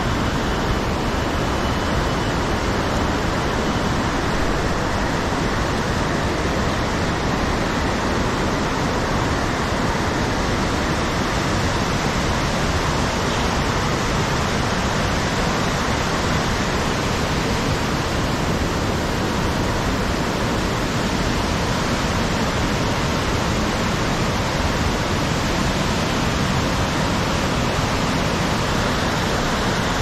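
Large waterfall in heavy monsoon flow: a loud, steady rush of falling water that does not change.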